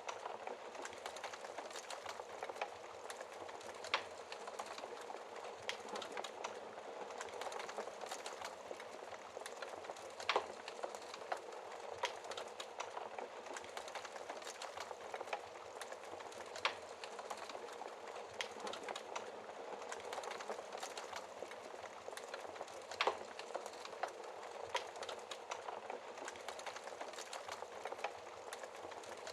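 Wood fire burning in a fireplace, heard through its glass shield: a steady soft hiss thick with small crackles, and a sharper pop standing out about every six seconds.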